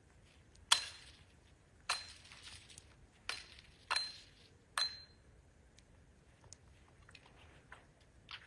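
Five sharp clinks of hard objects striking one another, about a second apart, each with a short high ring; then a few faint ticks.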